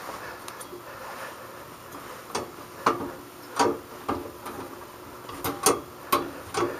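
Cast iron treadle of a sewing machine stand being pumped by foot, the pedal and its linkage giving a series of sharp clacks at uneven intervals.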